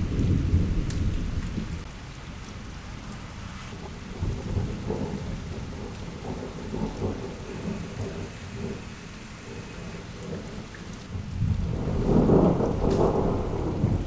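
Thunder rumbling: one roll fading over the first two seconds, then a second, louder rumble that builds about twelve seconds in. Rain falls steadily underneath.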